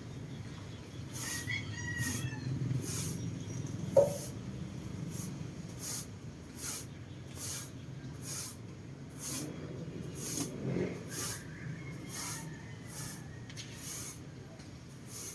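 Broom sweeping in short, regular swishing strokes, about two a second, with a single sharp click about four seconds in and a few faint bird chirps.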